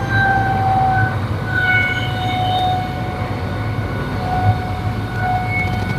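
Fire engine's engine and fire pump running hard under load while flowing water, a steady low drone with a whine on top that shifts in pitch and strength.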